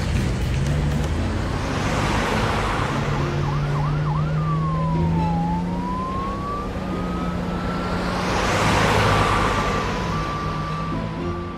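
Cartoon fire engine driving with its siren sounding; the vehicle noise swells twice as it passes.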